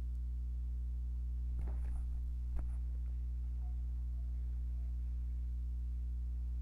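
Steady low electrical hum with a stack of even overtones on an otherwise quiet computer-recording line, and a single faint click about two and a half seconds in.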